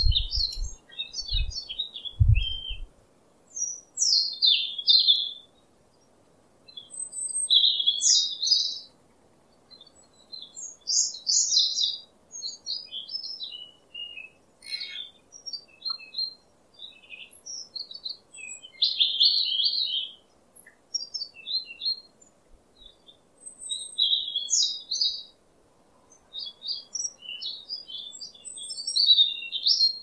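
Small songbirds chirping and twittering in short, high, quick phrases that come in bursts every second or two. A few low thumps sound in the first couple of seconds.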